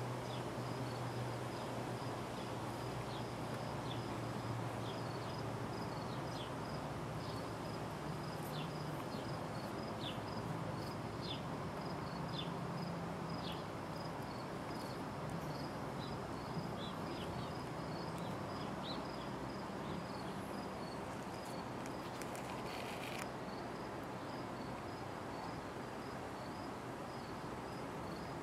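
A cricket chirping steadily in a rhythmic series of short high chirps, about two a second, with scattered short falling high notes and a low steady hum beneath.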